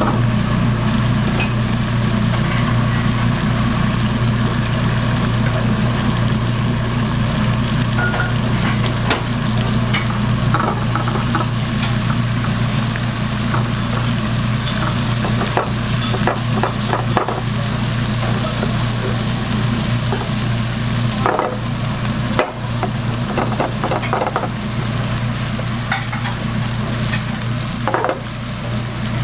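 Food sizzling in a hot pan, with scattered clicks and taps of utensils on the pan, over a steady low hum.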